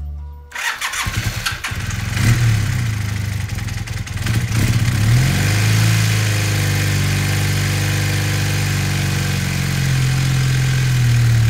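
1978 Honda Hawk CB400T II's parallel-twin engine starting from cold. It sputters for a second or two, catches at about two seconds in, and settles into a steady idle that rises in pitch at about five seconds in as it warms up.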